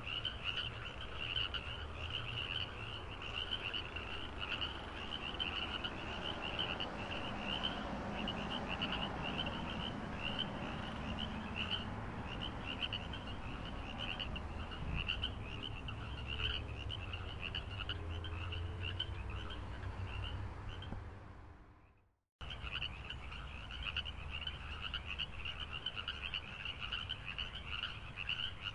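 Steady chorus of calling animals: a fast, pulsing high trill over a low rumble. It fades out about 21 seconds in and cuts back in a second later.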